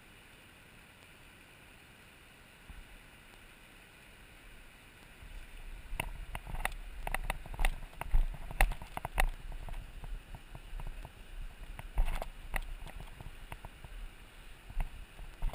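Steady faint rush of the river. From about five seconds in, an angler's footsteps over river stones and shallow water come in close to the microphone as irregular knocks and splashes, over a low rumble.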